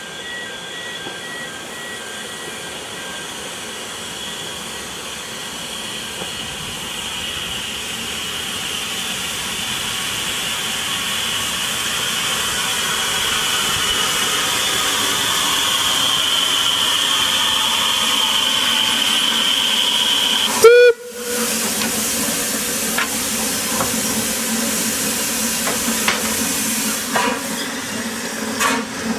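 Isle of Man Steam Railway tank locomotive No. 13 Kissack approaching: steam hiss with a steady high tone, growing louder as it draws near. About 21 seconds in there is one brief, very loud burst with a swooping pitch. After that the engine and train run on with a few sharp clicks near the end.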